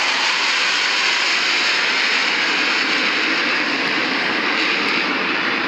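Loud, steady jet engine noise from USAF Thunderbirds F-16 fighter jets flying the display. The sound shifts slightly lower in pitch in the second half.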